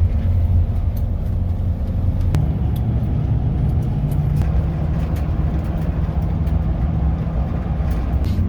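Steady engine and road rumble heard inside a moving vehicle's cabin.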